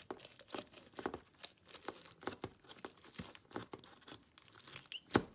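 Clear slime packed with foam balls being squished and pressed into a plastic jar: irregular soft crackles and little pops, with one louder click near the end.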